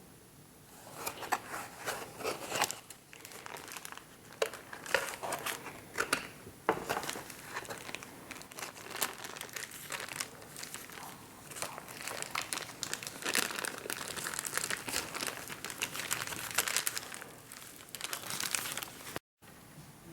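Crinkly wrapping material being handled and folded, irregular crinkling and rustling throughout, with a short break near the end.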